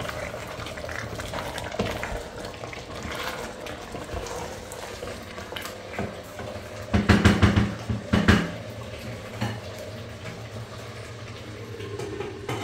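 A wooden spoon stirring and scraping a stew in a stainless steel pressure cooker pan, with the food simmering. About seven seconds in there is a louder metallic clatter, as the pressure cooker lid is fitted onto the pot.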